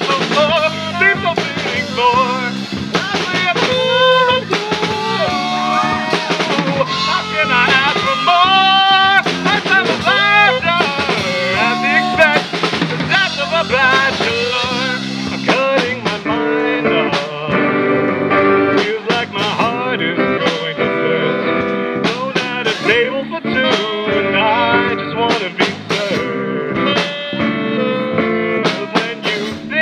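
A small live rock band playing, with saxophone and electric guitars over a drum kit. A gliding lead melody carries the first half, and regular drum hits stand out more in the second half.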